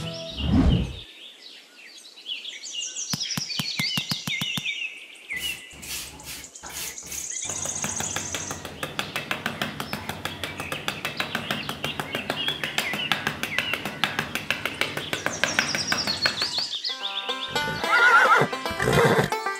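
A whoosh about half a second in, then birds chirping. Next comes a long run of rapid, even scraping of a small trowel working the sand, and near the end a horse whinnies.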